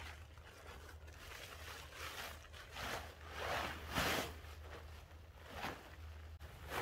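Blue polyethylene tarp crinkling and swishing as it is unfolded and shaken out, a string of rustling swishes with the loudest about four seconds in.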